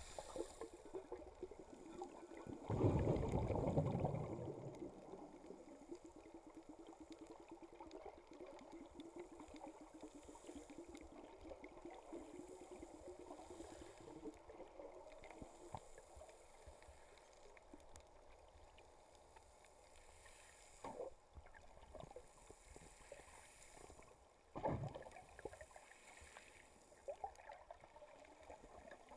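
Underwater sound picked up by a camera in its housing while snorkeling. A loud rush of water comes about three seconds in. Then there is a faint steady hum and constant faint crackling, with a couple of sharp knocks near the end.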